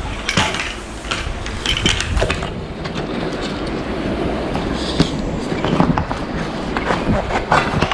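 Irregular knocks, clicks and scrapes of metal finds and magnet gear being handled, over a steady rough rumble of movement in mud and water.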